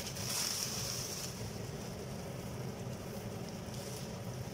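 Steady sizzle of broken vermicelli frying in hot ghee in a pan, a little stronger in the first second, over a low steady hum.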